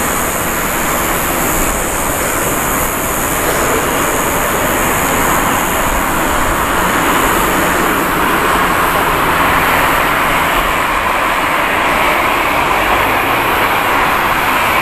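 Boeing 787 airliner's jet engines at takeoff power during the takeoff roll, a loud, steady jet noise that swells slightly partway through.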